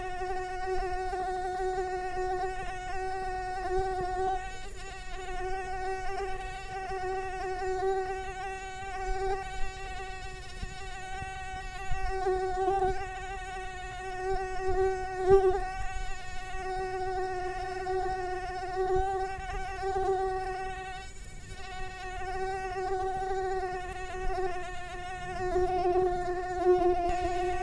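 Mosquito in flight, its beating wings giving a steady, high-pitched whine that swells and fades in loudness.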